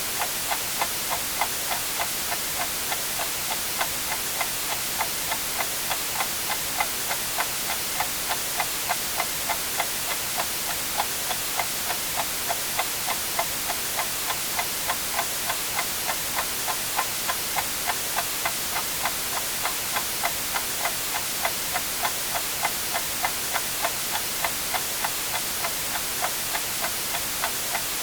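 Clock ticking steadily, about two ticks a second, over a constant white-noise hiss.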